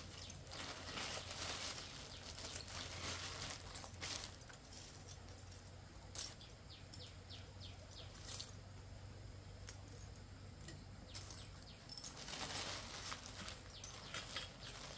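Faint scraping and rustling that swells and fades at irregular intervals, with a run of light ticks about halfway through.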